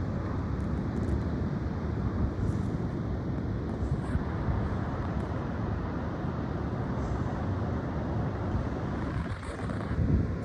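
High wind blowing steadily, with gusts buffeting the microphone.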